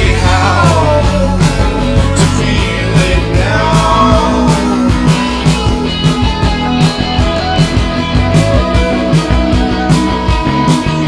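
Rock band playing a song, with drum kit and guitars and a steady beat; a sung voice trails off in the first few seconds, leaving the band playing on its own.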